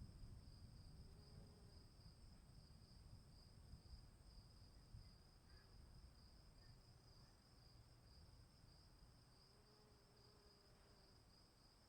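Crickets chirping in a steady high trill, with a faint low rumble of distant thunder dying away over the first few seconds.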